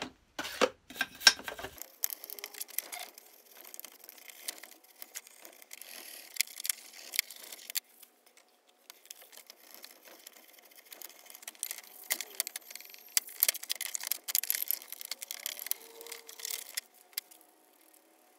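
Small wire brush scrubbing rusty cast-iron hand-plane parts, an irregular scratchy rasping in spells with sharp clicks and knocks of the metal parts in a plastic tray, dying away near the end.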